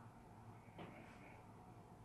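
Near silence: room tone with a faint low hum and one faint tap about a second in.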